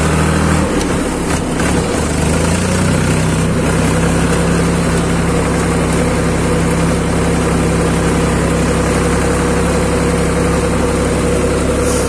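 Farm tractor's diesel engine running steadily as the tractor drives along, heard close up from the driver's seat, with a brief unsteady dip in the engine note about a second in.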